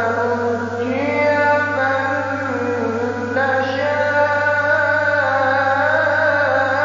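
A man's voice reciting the Quran in the drawn-out melodic tajweed style, holding long notes that step to a new pitch about a second in and again a little past three seconds.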